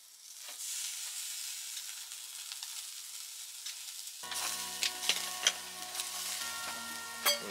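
Food sizzling in a hot pan, a steady hiss that starts just after the opening. Background music comes in a little past halfway, and there is a sharp click near the end.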